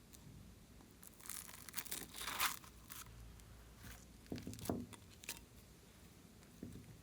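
Slime being stretched and mixed by hand, giving crinkly, tearing sounds in two spells: one starting about a second in, the other about four seconds in.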